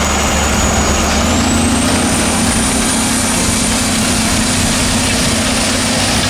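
John Deere 9530 articulated tractor's diesel engine running steadily under load while it pulls a cultivator through stubble. A thin high whine climbs in pitch about a second in and then holds.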